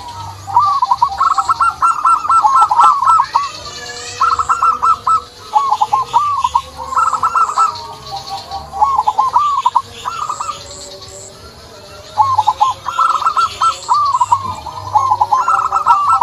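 Zebra doves (perkutut) calling: repeated phrases of short, quick hooked notes, coming in bursts with short pauses between them. Fainter high chirping of other birds sits behind them.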